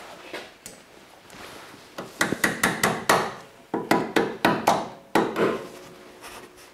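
A dozen or so sharp metal taps in two quick runs, three to four a second, as the retaining clip is knocked home over the new brake hose's fitting in its bracket.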